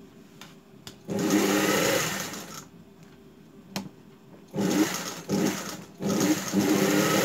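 Industrial sewing machine stitching through a denim jeans hem in three short runs: one starting about a second in, a stop-start run around the middle, and a longer run near the end.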